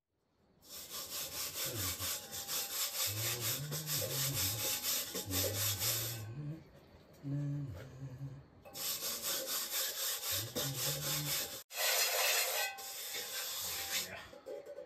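A metal cooking pot being rubbed by hand in rapid, rhythmic scraping strokes: two long runs with a short pause between, then a steadier stretch of scraping near the end.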